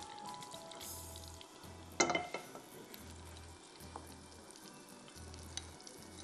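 Background music with a low repeating beat, under a faint crackling hiss. About two seconds in comes a single sharp clink, metal against a glass bowl, that rings briefly.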